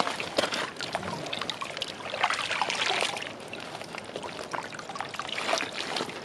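Lake water splashing and trickling in irregular small splashes as a landed carp is returned to the water.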